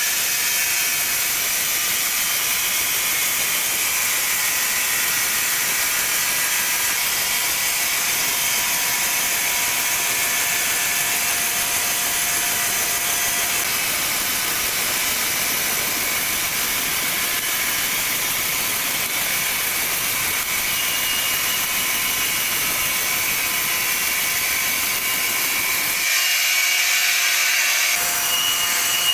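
Sawmill saw running steadily through a log, a continuous high-pitched hiss with a faint steady whine in it.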